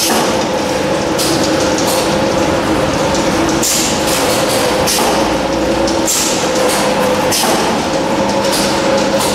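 Automatic can-sealing machine and conveyor of a corn canning line running steadily: a constant mechanical hum with a steady tone, broken about once a second by short hissing sounds.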